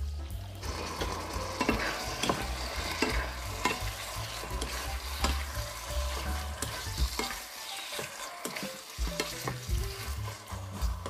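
Raw marinated chicken pieces sizzling in a hot non-stick frying pan while a spatula stirs and turns them, scraping and knocking against the pan in irregular clacks.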